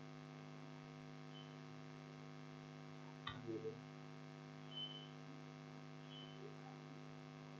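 Steady electrical mains hum in the recording, several even tones held throughout. A faint click comes a little past three seconds in, followed by a brief low murmur.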